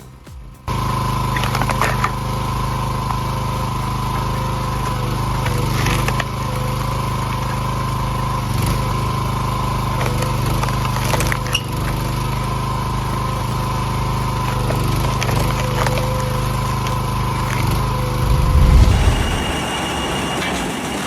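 A large engine-driven wood-processing machine running steadily under power, with sharp knocks now and then. Near the end the sound swells into a louder low rumble and then shifts to a different machine noise.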